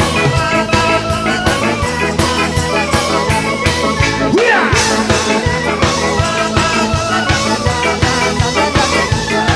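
Background rock music with a steady beat, guitar and drums.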